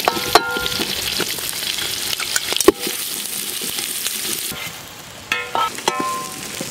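Sliced onions sizzling as they are added to hot ghee and oil in a large aluminium pot, stirred with a metal ladle that knocks and scrapes against the pot with short metallic rings. The sizzling quietens about four and a half seconds in.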